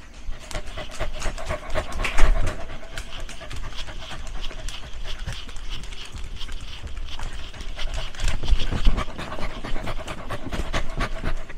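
A dog panting rapidly, with a couple of louder bumps along the way.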